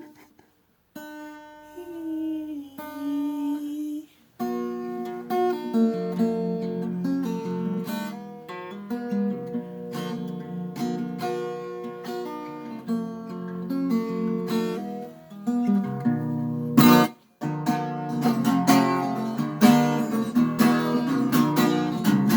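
Acoustic guitar: a few single notes as a string is tuned, one sliding up in pitch, then after a brief pause picked chords played steadily. About 17 seconds in a sharp stroke and a moment's stop, then strumming resumes more busily.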